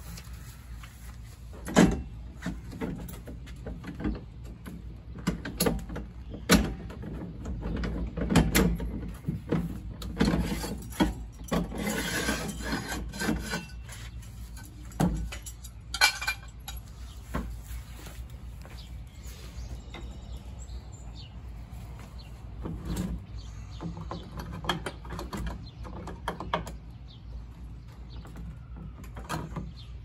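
Scattered knocks, clicks and scraping from hand work on a plastic RV waste tote as its handle and wheel hardware are taken off, with a longer stretch of scraping and rattling a little past the middle.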